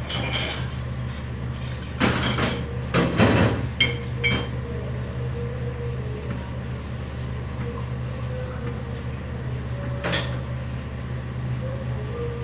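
Kitchen work clatter at a stainless steel counter: knocks and clinks of utensils and containers, loudest between about two and four and a half seconds in, with a single knock about ten seconds in, over a steady low hum of kitchen equipment.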